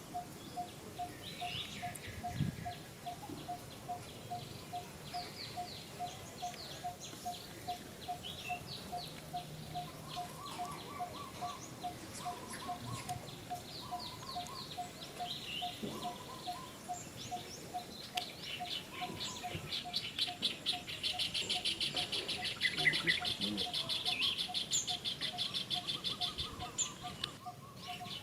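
Birds chirping, over a short, even note repeated about twice a second all the way through. A dense, rapid trill comes in about two-thirds of the way in and runs for several seconds.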